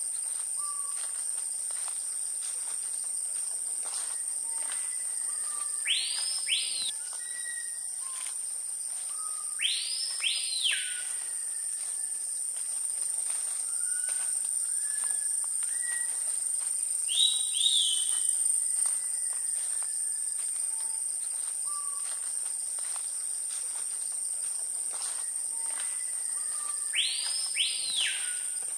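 Tropical rainforest ambience: a steady high-pitched insect drone, over which a bird gives a loud whistle three times, each a quick pair of rising-and-falling sweeps, with another bird call midway and scattered short soft whistles from other birds.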